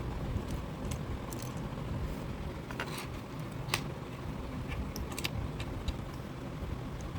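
Scattered small clicks and taps of plastic 4x4 puzzle-cube pieces being handled and pressed into place, over a steady low background rumble.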